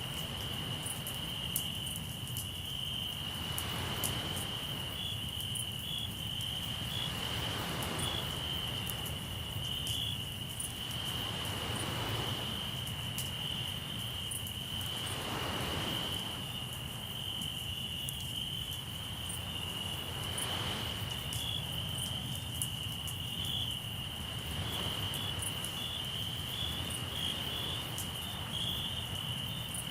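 Crickets trilling steadily in one high continuous note, with a campfire crackling in small scattered pops. Waves wash in with a swell of noise about every four seconds.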